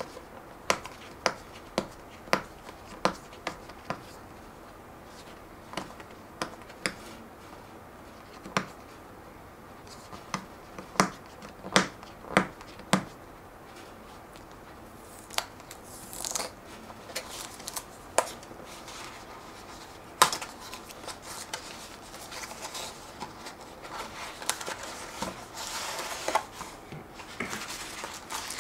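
Handling of a small paperboard retail box: a series of sharp clicks as fingernails pick at its sealed end flap, then, from about halfway on, rustling and scraping of cardboard as the box is opened and a cardboard inner box is slid out.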